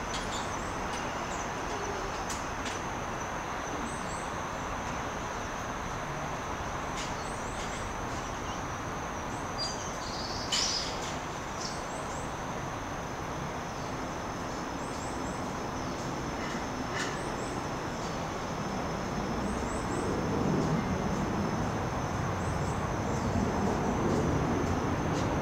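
Outdoor background noise: a steady hiss with a thin, steady high tone and a few faint high chirps and clicks. A louder click comes about halfway through. A low rumble grows over the last few seconds.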